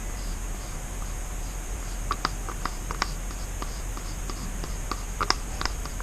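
Light scattered clicks and small taps of plastic paint cups and pouring gear being handled while acrylic paint is poured, over a steady low hum.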